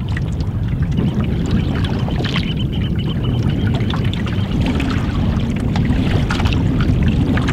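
Choppy, closely spaced wind waves slapping against a wooden canoe's hull in a series of small splashes, over a steady heavy rumble of wind on the microphone.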